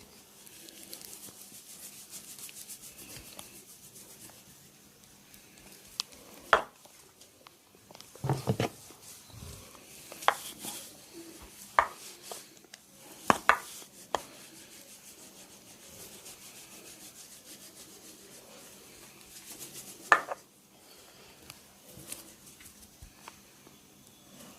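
Hands rubbing and working over skin in a massage, with about six sharp snaps scattered through, one of them a heavier double thump.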